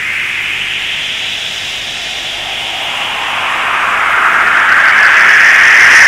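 A loud, steady rushing hiss that swells louder through the second half.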